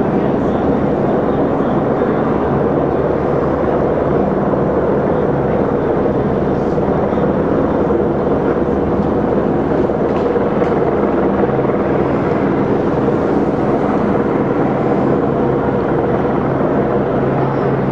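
A steady, loud engine drone with a low hum that stays even and unchanging.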